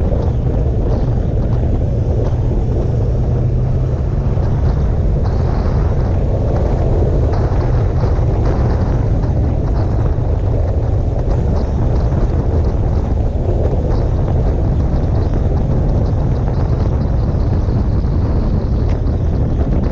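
Steady wind noise on the microphone of a camera riding on a moving motorcycle, over a low, even rumble from the bike and road.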